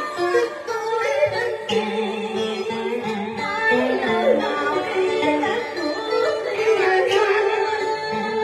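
A woman singing a cải lương excerpt into a microphone over instrumental accompaniment, her sung notes held and bending in pitch.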